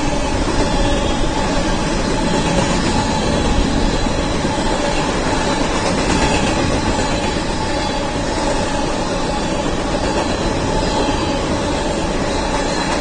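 Covered hopper cars of a fast BNSF freight train rolling past: a steady rumble and rattle of steel wheels on the rails, with a faint high steady ringing tone over it.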